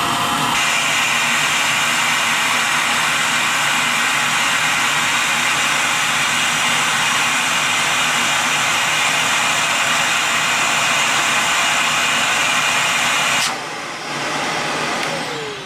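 Vacuum cleaner running steadily with its hose on a vacuum storage bag's valve, sucking the air out as the bag compresses. About 13 seconds in its sound drops, and the motor winds down with a falling whine near the end.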